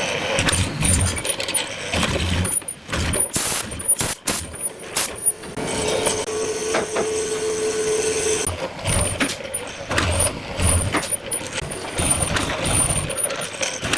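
Workshop noise while working wood: irregular knocks and clatter, with a steady machine hum from about six seconds in that stops near eight and a half seconds.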